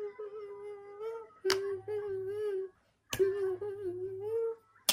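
A voice humming a tune in long held notes, cut into by three sharp clicks.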